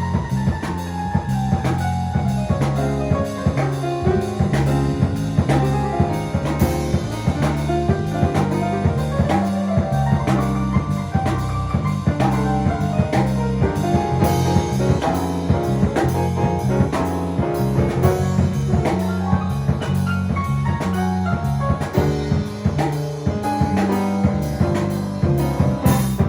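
Live Latin jazz: a drum kit keeps a steady groove under chords and a melody from an accompanying instrument.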